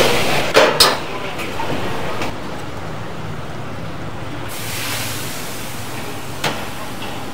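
Steady rushing background noise of a busy commercial kitchen, with a few sharp clicks, two of them about half a second in and one near the end.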